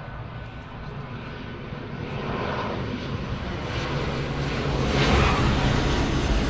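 Jet engines of a three-engined DC-10 air tanker as it lands, a steady jet noise that grows louder and is loudest about five seconds in.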